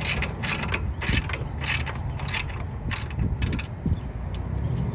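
Hand ratchet wrench clicking as a bolt is run in, the handle swung back and forth about twice a second, with shorter, quicker strokes near the end.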